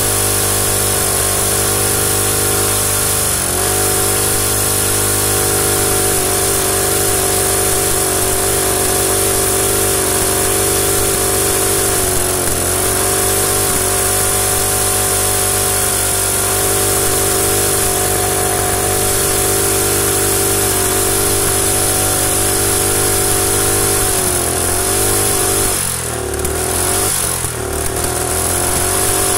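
A Predator single-cylinder four-stroke small engine runs steadily with its head bolted on without a head gasket, on a carburetor with a bigger jet that is still not exactly right. Its speed dips briefly a few times, and near the end it stumbles and runs unevenly for a couple of seconds before picking back up.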